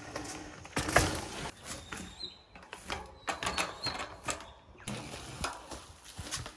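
Merida Big 9 hardtail mountain bike clattering over rough trail: irregular knocks and rattles from the frame, chain and wheels as it rides over bumps.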